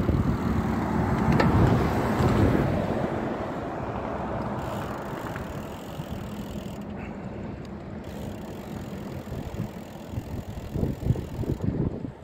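Wind rushing over a phone microphone together with road noise while riding a bicycle. It is loudest in the first few seconds, then settles into a steadier, softer rush, with a few short knocks near the end.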